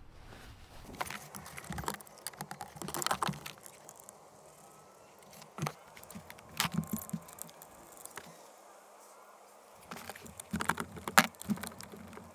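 Hands working a car's blower motor back into its plastic housing under the dash and starting its Phillips screws with a screwdriver. It gives irregular plastic clicks, knocks and small rattles, with the sharpest knock near the end.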